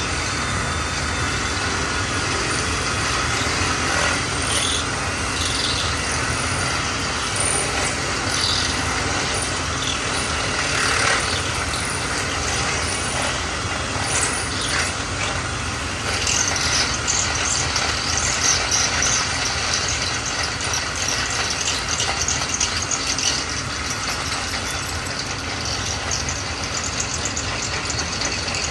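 Power drill running steadily under load, boring deeper into a wooden door to make room for a deadbolt.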